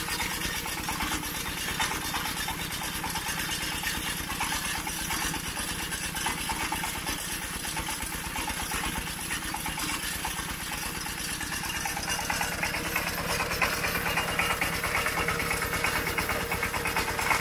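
A small engine idling steadily with an even, rapid pulsing beat, running a little louder from about twelve seconds in.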